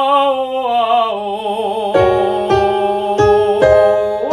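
A voice singing a slow descending vocal exercise with vibrato, in an operatic style. From midway, piano chords are struck about four times beneath the held note, and the voice slides up near the end.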